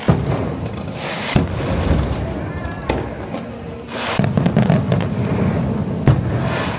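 Aerial firework shells bursting in a display: sharp bangs at the start, about a second and a half in, at about three seconds and near the end, between two stretches of dense crackling.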